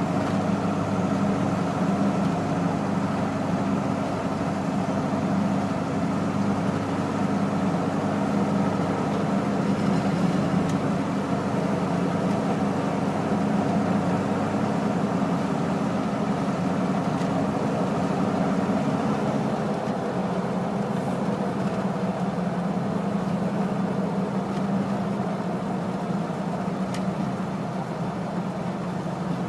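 Steady engine and tyre noise heard from inside a car's cabin while cruising on a highway.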